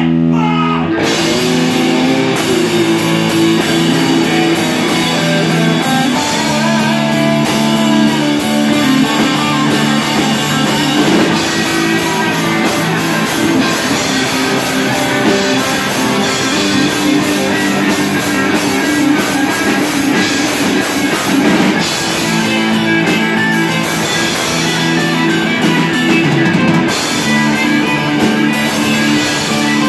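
Live rock band playing loud: distorted electric guitars, bass guitar and drum kit with crashing cymbals. A held guitar chord rings for the first second before the full band comes in.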